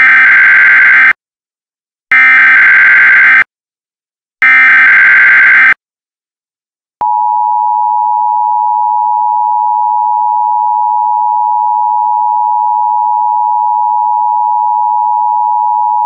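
Emergency Alert System tones: three bursts of SAME header data, each a little over a second long with about a second between them. About seven seconds in, the EAS two-tone attention signal begins, a steady dual tone near 900 Hz (853 and 960 Hz) held for about nine seconds.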